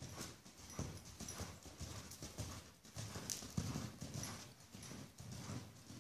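Hoofbeats of a Paint cross gelding ridden over soft dirt arena footing, a steady rhythm of dull thuds, about two a second.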